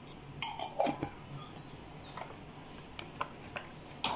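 Light clicks and clinks of kitchen utensils: a small cluster about half a second in, then a few scattered faint taps.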